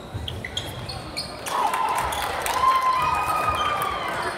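A basketball bouncing on a gym floor during a game, with short knocks and voices in the hall.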